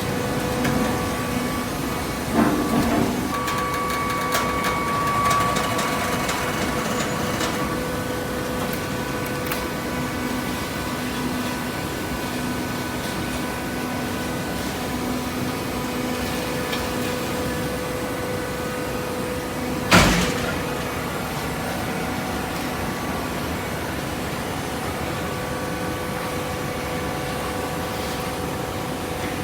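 Baling machine running with a steady mechanical hum. A single sharp bang comes about two-thirds of the way through, and there are a few lighter knocks near the start.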